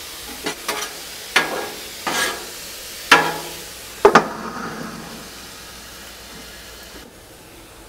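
Metal spatulas scraping and clanking on a Blackstone flat-top griddle, about six strokes in the first four seconds, while chicken, peas and carrots sizzle. The sizzle quiets over the last few seconds.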